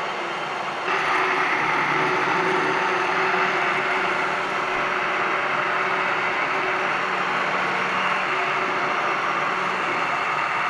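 Immersion (stick) blender running steadily in a glass mug, emulsifying oil and egg into mayonnaise as it thickens. It gets a little louder about a second in.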